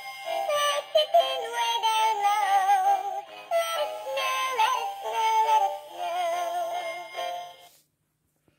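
Animated plush snow-mouse toy singing a Christmas song through its small built-in speaker: a thin, tinny electronic melody with synthesized singing, which cuts off near the end.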